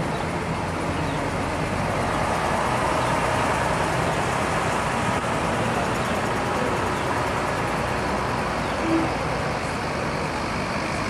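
Diesel engines of a slow convoy of Mercedes-Benz fire engines running steadily as the trucks pass one after another, with tyre and road noise. A brief single tone sounds about nine seconds in.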